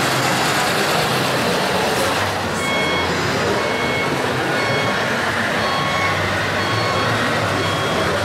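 Reversing beeper sounding in short repeated beeps about once a second over steady, loud background noise.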